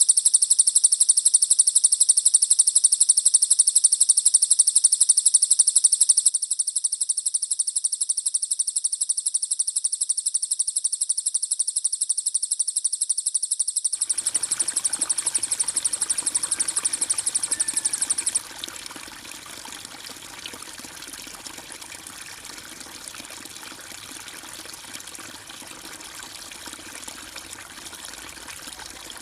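A songbird's rapid, very high, evenly pulsed trill, dropping in level about six seconds in and stopping a little past the middle. Flowing, trickling water comes in shortly before the trill ends and runs on alone afterwards.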